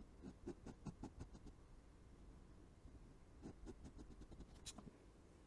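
Faint scratching of a pen tip on sketchbook paper as short hatching strokes are drawn: a quick run of strokes in the first second and a half, and another run about three and a half seconds in.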